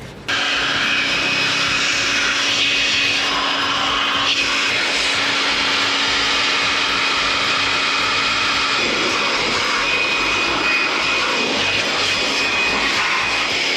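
Handheld electric blower switched on just after the start and running steadily, a loud rush of air over a constant motor whine.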